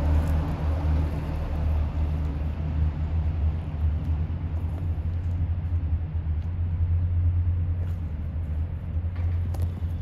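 A steady low engine rumble with a faint hum.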